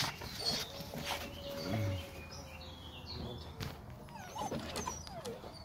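Presa Canario puppies whining: one long, drawn-out whine that sinks slowly in pitch, then a few short whimpers near the end, among scattered light knocks.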